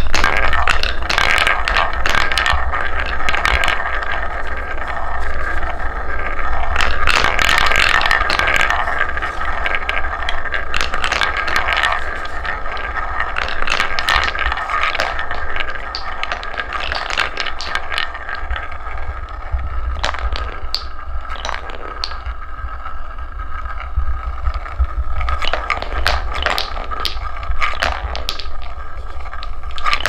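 Wooden balls rolling round and round a wooden funnel bowl: a continuous rolling rumble with frequent clacks as the balls knock into each other. It fades a little as the bowl empties.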